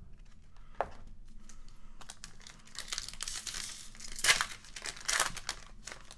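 Foil trading-card pack wrapper crinkling and being torn open by hand, with its two loudest rips about four and five seconds in. A single light tap comes about a second in.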